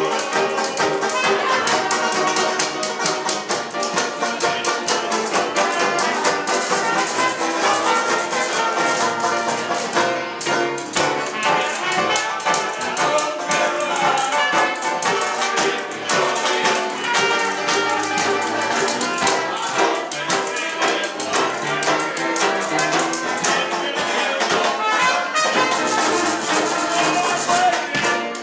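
A small live band playing a tune with a steady beat: upright piano with trombone and hand percussion.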